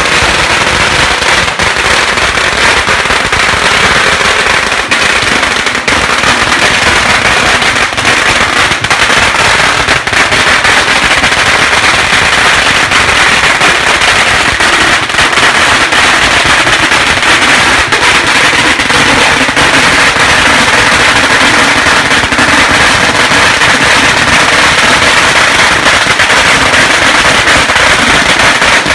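A long string of firecrackers exploding in a loud, dense, unbroken barrage of rapid bangs.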